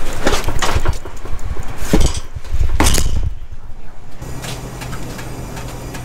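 Sawn concrete pieces knocking, clinking and thudding as they are worked loose and shifted by hand, a run of sharp impacts with the loudest about two seconds in. After about four seconds a steady low hum takes over.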